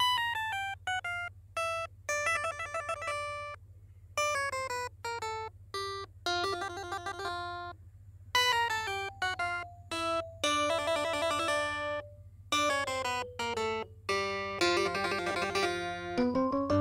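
Background instrumental music: quick runs of bright pitched notes in short phrases, with brief pauses between phrases, over a steady low hum.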